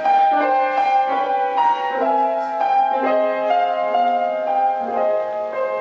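Piano playing a song introduction: notes and chords struck about twice a second and left ringing.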